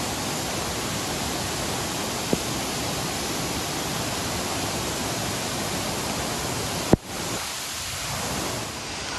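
Steady rushing roar of a large waterfall (Amicalola Falls), with a sharp click about seven seconds in, after which the rush is slightly quieter.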